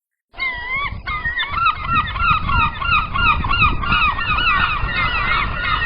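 A flock of seagulls calling, many short wavering cries overlapping continuously over a steady low background noise. The calls start suddenly about a third of a second in.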